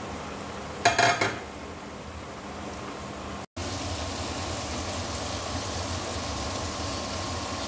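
Flour-coated chicken deep-frying in oil in a steel wok, a steady sizzle, with a short metallic clatter about a second in. After a sudden cut, a pot of vegetable soup with carrots bubbling steadily at the boil.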